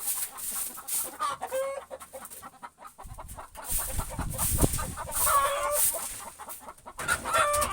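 Flock of domestic chickens clucking and squawking noisily, with short calls coming over and over. A low rumble runs underneath from about three to six seconds in.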